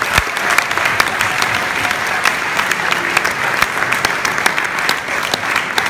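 Audience in a ballroom applauding at the end of a speech, a dense, steady patter of many hands clapping, with sharp close claps from people right by the phone.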